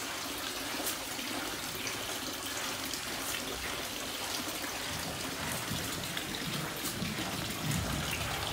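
Steady splashing and trickling of water in a canvas catfish tank as the fish feed at the surface.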